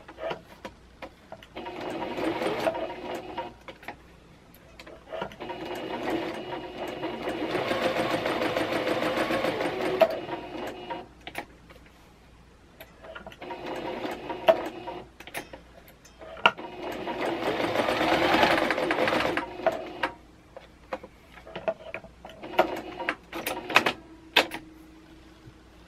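Singer Quantum CXL computerised sewing machine stitching a fabric scrap in five runs of a few seconds each, the longest about five seconds. Sharp clicks from handling the machine fall in the pauses. The machine has just been repaired and is being test-sewn.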